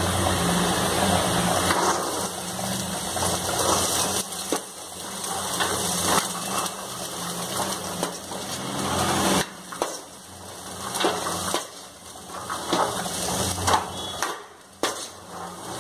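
Steel ladle stirring boiled chickpeas in an aluminium kadai: irregular scraping and clinking of metal on metal as the chickpeas tumble and rattle in the pan.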